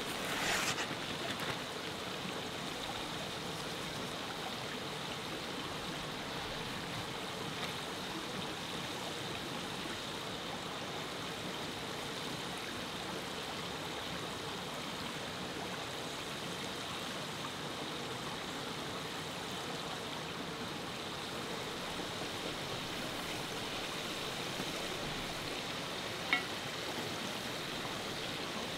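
River water flowing steadily with an even rushing sound, and a single sharp click near the end.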